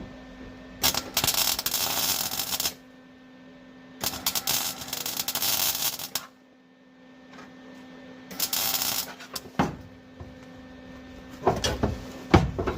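Welding arc crackling in three tack welds on sheet-metal trunk floor patches, the first two about two seconds long and the last about one second, with a faint steady hum underneath.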